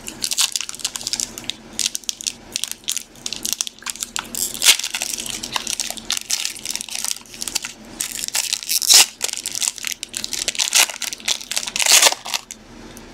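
A foil trading-card pack wrapper being torn open and crinkled by hand, with the cards slid out. It crackles continuously, with louder crinkles now and then.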